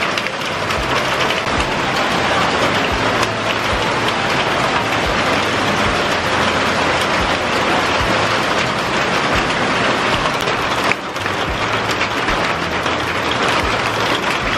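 Heavy hail mixed with rain pelting paving and parked vehicles: a dense, steady hiss of countless small impacts, with occasional dull low thuds.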